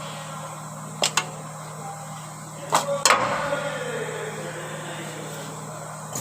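A few sharp knocks over a steady low hum: two light clicks about a second in, then two louder knocks near three seconds, the last followed by a short ringing.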